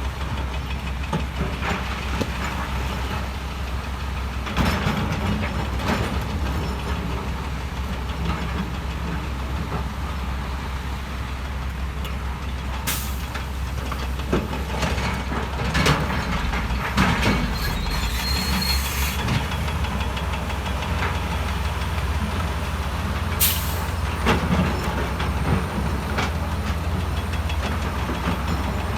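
Heavy diesel earthmoving machinery running steadily at a low rumble, with scattered clanks and knocks of rock and steel. There are three short sharp hisses, like air or hydraulic releases.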